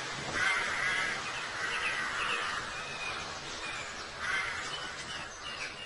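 Birds calling: a series of harsh, rasping calls, four in all, with short higher chirps between them.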